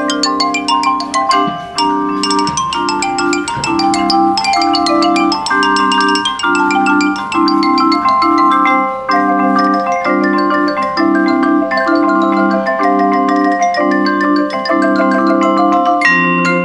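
Marimbas played with yarn mallets by a small ensemble: quick runs of pitched notes in the upper range, stepping up and down, over a steady pulse of sustained low chords.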